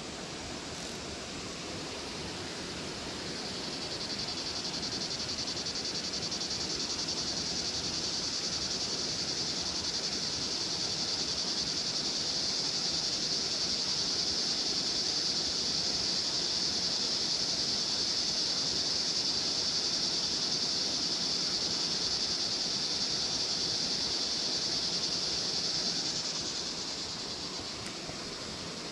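An insect buzzing: a high, steady, shrill drone that swells in about three seconds in, holds, and fades out near the end, over faint outdoor rustle.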